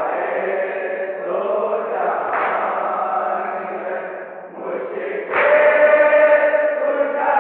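Nauha, a Shia lament, chanted unaccompanied by voices in a slow sung line; a louder held phrase begins about five seconds in.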